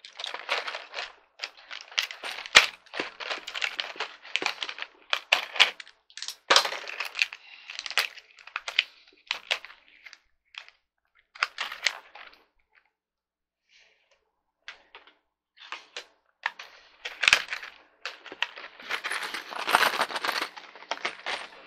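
Paper and plastic packaging rustling and crinkling as it is handled, with scattered clicks and taps of small metal screws and chair parts; it pauses for a few seconds about halfway, then the rustling picks up again.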